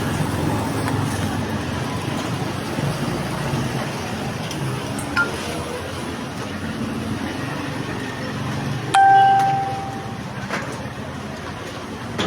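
Outdoor ambience with a steady low background of passing traffic and distant voices. A short, clear beep sounds once about nine seconds in.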